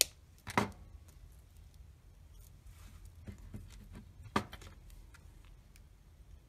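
Jewelry wire cutters snipping off excess wire, a sharp click at the start, followed by a few light clicks and taps of the metal hand tools being handled, the loudest about half a second and four and a half seconds in.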